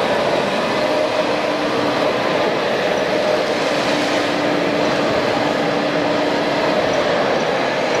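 Radio-controlled hydraulic model Komatsu excavator working, with a whine from its pump coming and going as it digs, over a steady din of hall noise.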